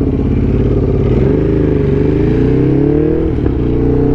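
Motorcycle engine on the move, its note climbing as the throttle opens, with a brief dip about three and a half seconds in, like a gear change, before it climbs again.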